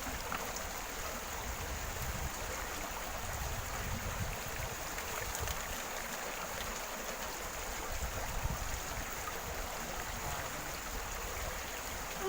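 Steady wash of water noise, with an uneven low rumble underneath.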